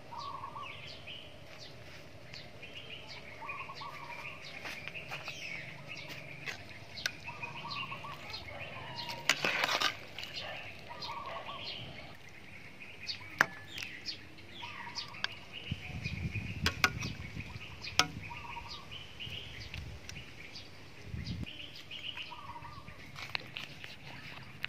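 Birds calling, a short call repeating every two to three seconds, with scattered sharp clicks and a brief louder clatter about nine seconds in.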